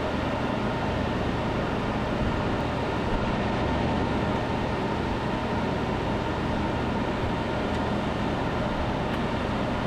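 Steady whirring fan noise over a constant low machine hum, with one faint click about three seconds in.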